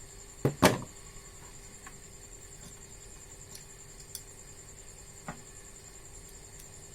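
Parts or tools handled on a repair bench: two sharp knocks close together about half a second in, then a couple of faint clicks, over a steady faint high-pitched whine.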